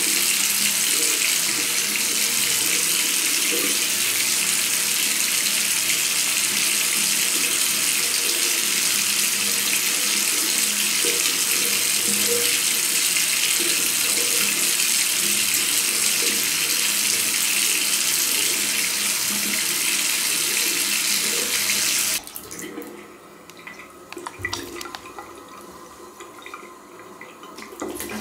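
Water running steadily from a bidet faucet into the ceramic bowl. Near the end the rush drops suddenly to a much quieter level, leaving a few faint knocks.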